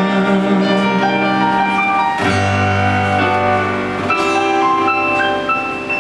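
A live band plays an instrumental passage after the singing has stopped: held keyboard and guitar chords over a bass note. The chord changes about two seconds in and again about four seconds in.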